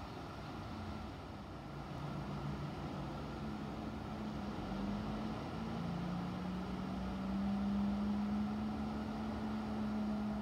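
A low engine hum that comes in about two seconds in, growing louder and rising slightly in pitch, over a steady rushing background.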